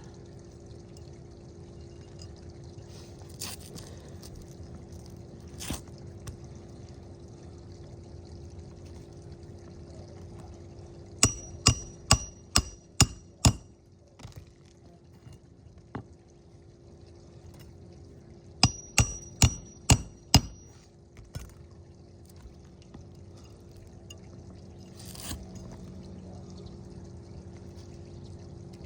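Hand hammer driving roofing nails into a new asphalt shingle: two runs of about six quick, ringing blows, a few seconds apart, with a few single knocks between them. A steady low hum runs underneath.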